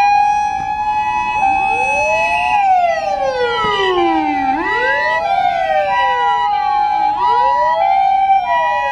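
Ambulance siren: a hi-lo two-tone alternating between two pitches, with wailing tones sweeping up and down over it.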